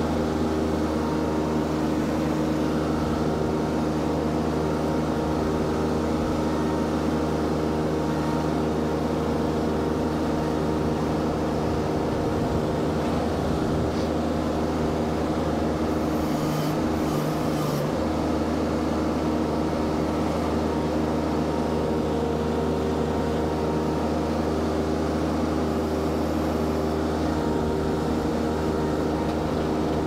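Mini skid steer's engine running steadily at working throttle, with a brief break in its low hum a little past halfway. It is carrying a full firewood tote, which puts the machine at its limits.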